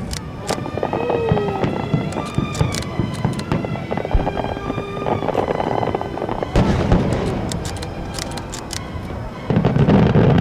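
Fireworks display bursting: many sharp cracks and pops in quick succession, with music playing underneath. A louder, deeper barrage comes in near the end.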